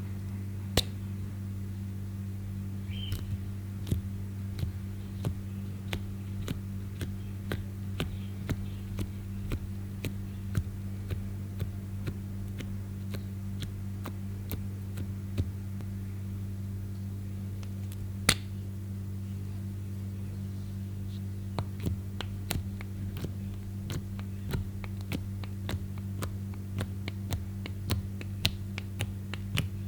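Clear slime being worked by hand, giving scattered sharp sticky clicks and pops that come more thickly toward the end, over a steady low mains hum.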